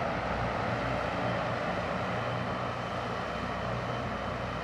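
Joby electric air taxi flying overhead, its six tilting propellers making a steady sound: a few faint low humming tones under an even hiss.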